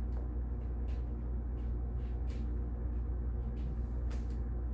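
Room tone: a steady low hum with a few faint, short ticks scattered through it.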